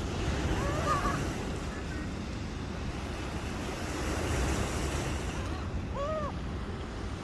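Steady rushing wind and surf noise, with two short seagull calls, one about a second in and another near the end.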